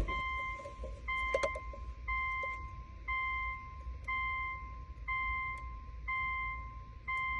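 Electronic beeping from the car, a steady mid-pitched tone repeating about once a second, each beep lasting most of a second, with a few faint clicks.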